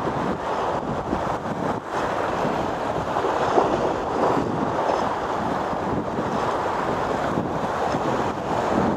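Sea waves washing and breaking against shore rocks, with wind buffeting the microphone: a steady rushing wash.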